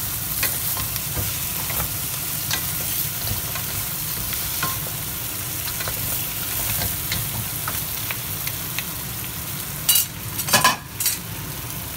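Lobster pieces sizzling in a hot stainless steel wok while a wooden spatula stirs and scrapes through them, with many small clicks over the steady frying hiss. A few louder knocks come near the end.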